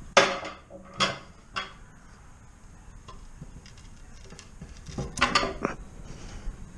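A 75 mm neodymium fishing magnet knocking against a chair's steel tube frame. There are three sharp metallic clacks in the first two seconds, the first the loudest, then a quick run of clanks about five seconds in.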